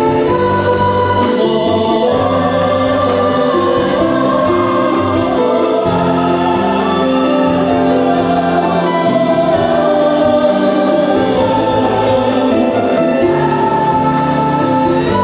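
Choir singing a polyphonic arrangement in held chords across several voice parts, with a male soloist singing on microphone.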